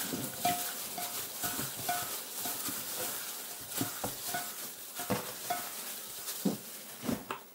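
Gloved hands dipping and turning pieces of salted bream in an oily marinade in a glass dish: soft wet squelches with irregular light clicks of fish and fingers against the glass.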